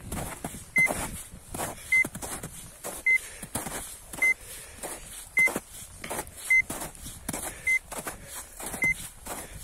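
Arva Evo 5 avalanche transceiver in search mode giving short, high beeps about once a second, each beep a sign that it is picking up the buried beacon's signal as the distance closes. Louder crunching footsteps in snow fall between the beeps.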